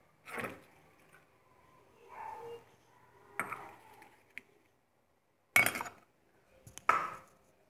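Metal spatula scraping and knocking against a non-stick wok while ginger-garlic paste fries in a little oil: a handful of separate strokes with quiet between them, the two loudest near the end.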